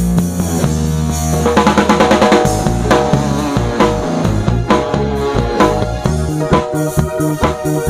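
Live pop band playing an instrumental break, drum kit to the fore over electric bass guitar, with a quick run of drum hits about two seconds in and a steady beat after it.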